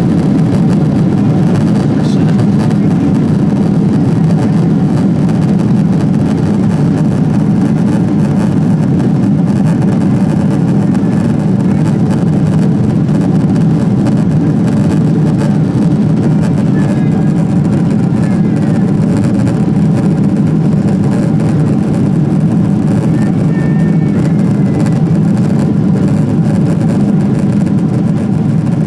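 Boeing 777-200's twin jet engines at takeoff thrust heard from inside the cabin: a loud, steady low rumble through the takeoff roll, liftoff and climb-out.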